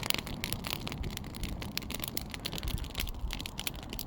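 Wood campfire burning with irregular sharp crackles and pops over a steady low rumble.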